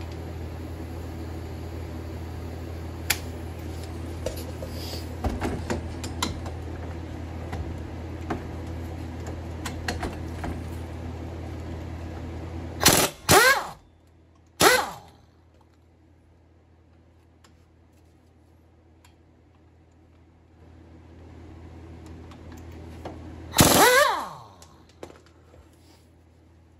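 Pneumatic impact wrench hammering the 17 mm brake caliper bolts loose on a 2006 Toyota Camry, in three short bursts about halfway through and one longer burst near the end. A steady low hum with light tool clicks runs under the first half and stops at the first bursts.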